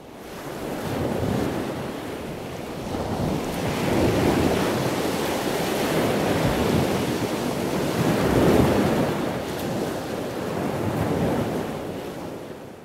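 Ocean surf: waves breaking and washing in, the roar swelling and easing in several surges. It fades in at the start and fades out near the end.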